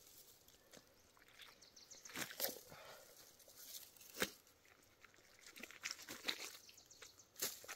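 Black bear being field-dressed by hand: quiet, irregular wet tearing and crackling as the innards are worked loose and pulled from the body cavity, with a few sharper snaps.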